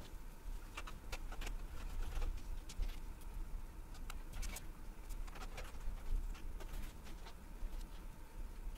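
Scattered light clicks and taps of a screwdriver and small screws being handled at a steel PC case, readying screws to mount a solid state drive, over a low steady hum.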